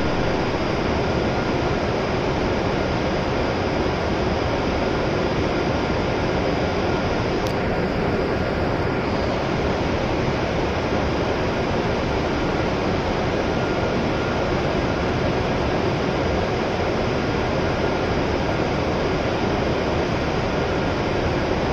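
Steady hiss and hum of a Shinkansen station platform beside a stopped W7 series train, with a single faint click about seven seconds in.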